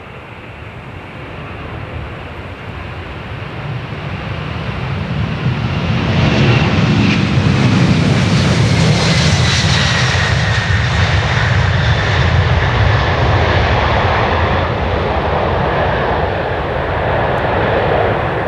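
McDonnell Douglas MD-11F trijet freighter taking off at full power: the jet engine noise builds as it rolls closer and is loudest about halfway through. A whine drops steadily in pitch as it passes, and a low rumble then slowly fades as it climbs away.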